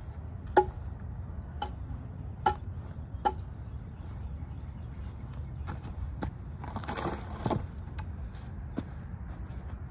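Hatchet chopping small branches off a cherry log: four sharp strikes about a second apart, then a few lighter knocks and a brushy rustle about seven seconds in. Wind rumbles steadily on the microphone.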